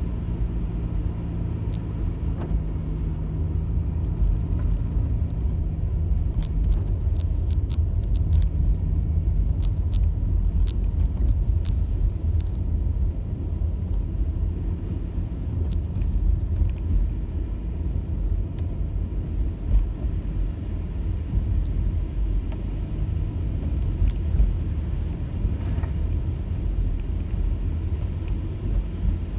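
Car driving along with a steady low road and engine rumble and a low hum. A scatter of light sharp clicks comes about a quarter of the way in.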